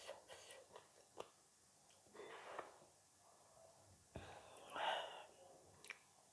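Quiet close-miked eating sounds: a few faint mouth clicks, then soft breathy sniffs, the loudest about five seconds in.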